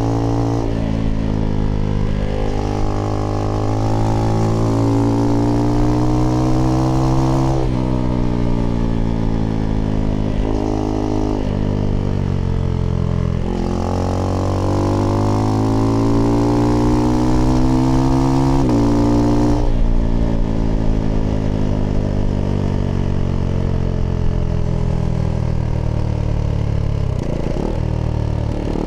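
Husqvarna Svartpilen 401's single-cylinder engine breathing through an aftermarket IxRace Mk.2 exhaust with a modified dB killer, accelerating through the gears. The pitch climbs and drops back at each upshift about five times, then holds steadier and eases off near the end.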